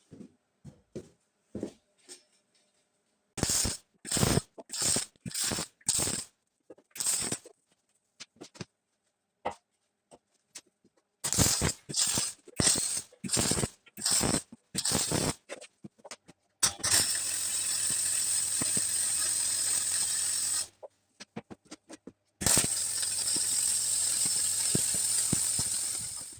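Electric arc welding: two runs of short bursts about half a second apart, then two steady crackling beads of about four seconds each that start and stop abruptly, as the axle is welded onto the frame.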